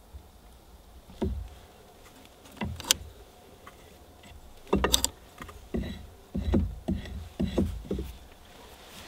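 Several irregular knocks and thuds, the loudest about three and five seconds in.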